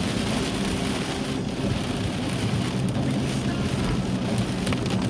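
Heavy rain falling steadily, with a low steady hum underneath.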